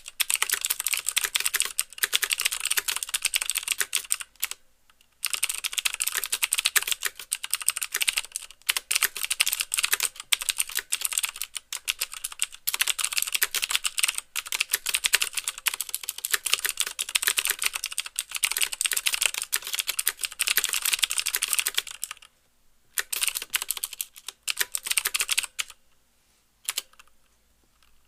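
Fast touch typing on a mechanical keyboard with clicky Cherry MX Blue switches: a rapid run of sharp clicks, with keys bottoming out for a clack under the click. The typing pauses briefly about four seconds in and again about twenty-two seconds in, then goes on in shorter bursts near the end.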